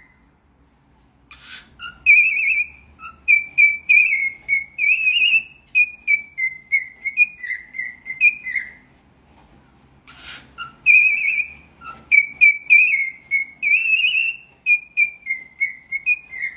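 A parrot whistling a melody, the same phrase twice with a short pause between, each time starting with a brief rasping note.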